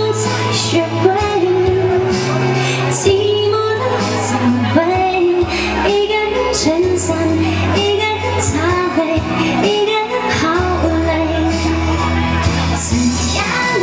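A woman singing a Mandarin pop song live into a handheld microphone over musical accompaniment, amplified for an outdoor audience.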